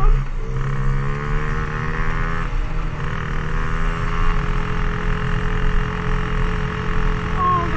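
Dirt bike engine running while riding, a steady drone whose pitch rises slightly over the first two and a half seconds and then holds steady.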